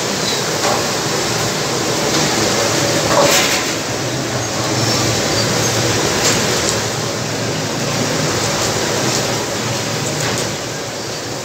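Steady hiss and bubbling of fish deep-frying in oil in large karahi woks, with a few knocks of a cleaver chopping fish on a cutting board.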